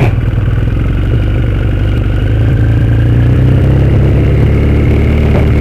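Motorcycle engine running steadily at low speed while being ridden.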